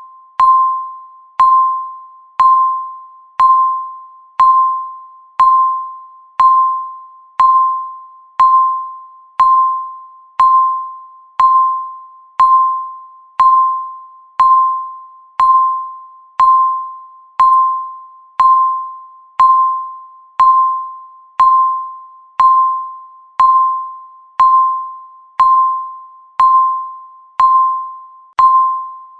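Countdown timer's electronic beep: a single short, pitched tone that fades quickly, repeating evenly once every second to mark each second counted down.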